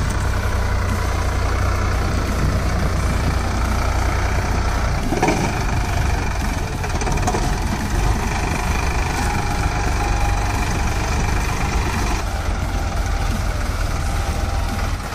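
Sonalika DI-47-RX tractor's diesel engine running steadily.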